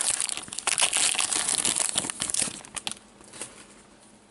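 Wrapper of a 2014-15 Upper Deck Masterpieces hockey card pack crinkling and tearing as gloved hands open it and pull the cards out, a busy run of crackles that stops about three seconds in.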